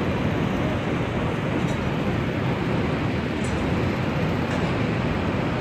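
Steady low rumble of city traffic noise rising from the streets far below, with no single vehicle standing out.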